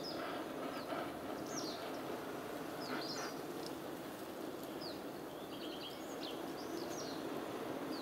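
Small wild birds calling in short high chirps many times over a steady background rush, with a quick run of repeated notes about five and a half seconds in.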